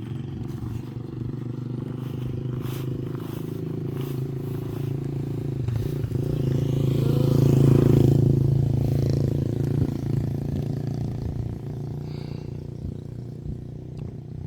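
A motor vehicle's engine running steadily, growing louder to a peak about halfway through and then easing off.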